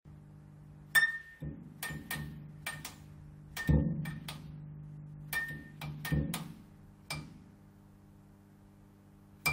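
Neon light flickering: a steady electrical hum broken by a rapid, irregular series of sharp clicks, the hum swelling louder with each flicker. After about seven seconds it settles to a steady buzz, with one last click at the very end.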